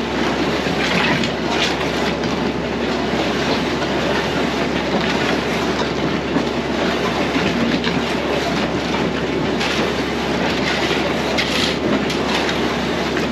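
Heavy machinery running steadily: the engine noise of the tractor driving the concrete mixer and the excavator working during the concrete pour.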